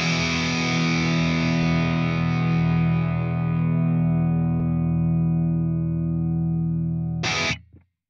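An electric guitar chord, recorded through a Universal Audio Volt 2 preamp with its vintage mode switched off about halfway, rings out and slowly fades, its treble dying away first. Near the end a brief scratchy noise comes, and then the sound cuts off.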